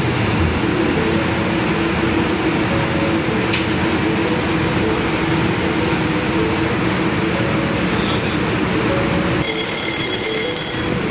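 Steady, loud machinery din of a container ship's engine room, its diesel engines running, with a constant hum. About nine and a half seconds in, the sound shifts and a high, steady whine comes in over it.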